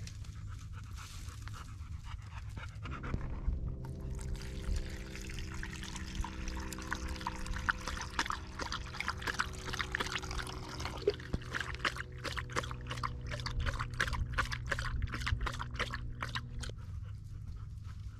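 Vizsla panting in quick rhythmic breaths, about three a second, with a steady low hum underneath from a few seconds in until near the end.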